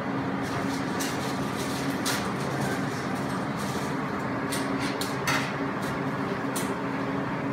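A steady machine hum made of several low tones over a noisy background, with a few light clicks and knocks scattered through it.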